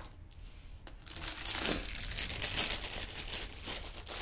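Thin clear plastic bag crinkling as it is picked up and handled, starting about a second in.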